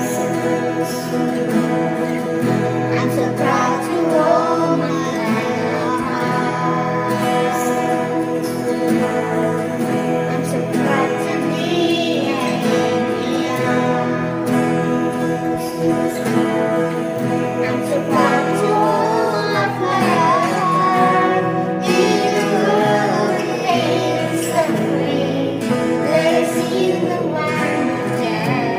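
A group of children singing a song together, mixed over instrumental accompaniment.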